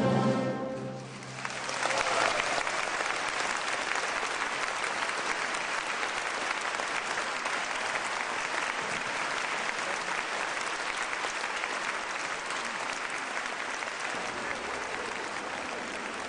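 A youth orchestra's final chord dies away, and about a second and a half later the audience breaks into applause that carries on steadily, easing slightly near the end.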